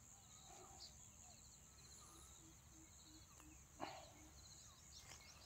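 Faint outdoor insect noise: a steady high buzz of crickets or cicadas with small pulsed chirps. A run of short low calls repeats about three times a second for a couple of seconds, and a single sharp knock comes near four seconds in.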